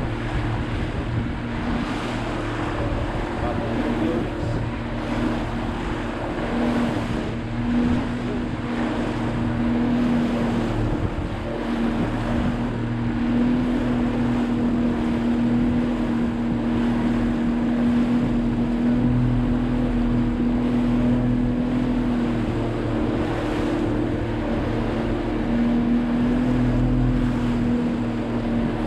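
A motorboat's engine running steadily under way, a constant hum over wind and water noise.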